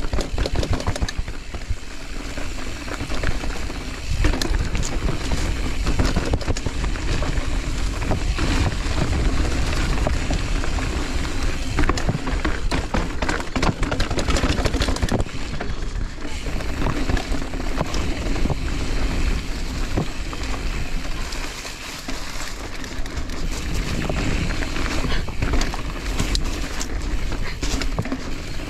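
Mountain bike descending a rough trail at speed, its tyres running over dirt and rock and the bike clattering and knocking over bumps, under a constant low rumble.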